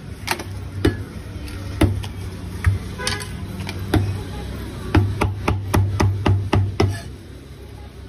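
Cleaver chopping braised goose feet and tendons on a thick wooden chopping block, sharp woody chops with a crisp crunch. A few spaced single chops, then a quick run of about nine chops, roughly four a second, near the end.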